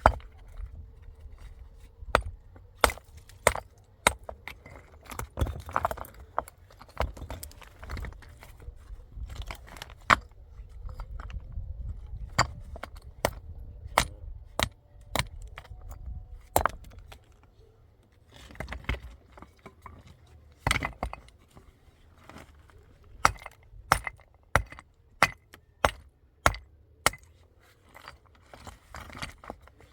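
Repeated sharp knocks and clinks of hard objects being struck or handled, irregular at first, then settling into a steady run of about one and a half strikes a second for the last several seconds.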